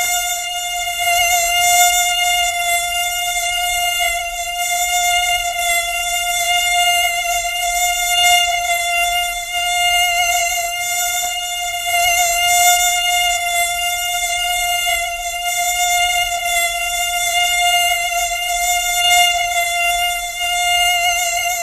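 Mosquito whine: a continuous high-pitched buzzing drone from the wingbeats, its pitch wavering slightly and its loudness swelling and fading a little.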